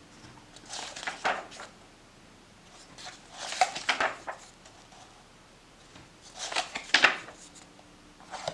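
Hands handling packaging, three bouts of rustling with light clicks and knocks, each about a second long, with quiet pauses between.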